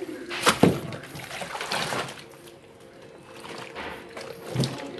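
Wet clothes being shaken out and laid into a twin-tub washing machine's spin-dryer drum: rustling cloth, a couple of soft knocks against the drum, and water dripping and splashing.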